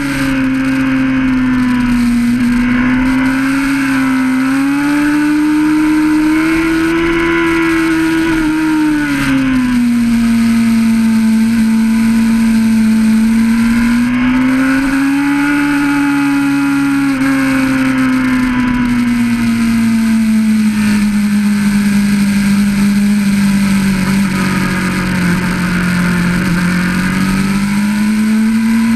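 Honda CBR600RR's inline-four engine at speed on a race track, picked up by an onboard camera with wind rushing past. The engine note climbs and falls as the bike goes through corners, dropping sharply about nine seconds in, sinking slowly through the second half and rising again near the end.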